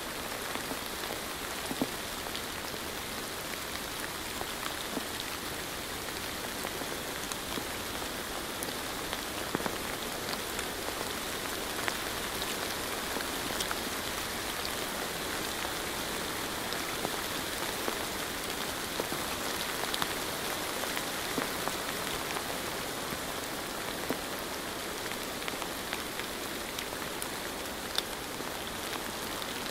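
Steady rain with many individual drops ticking and pattering sharply throughout.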